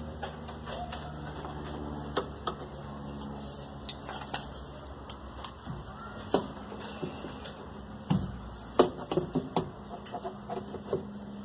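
Scattered metal clicks and knocks as the steel mechanism mounting plate and spring of a Brastemp washing machine are handled and set in place on the tub, over a steady low hum. The sharpest knocks come in a cluster about eight to nine seconds in.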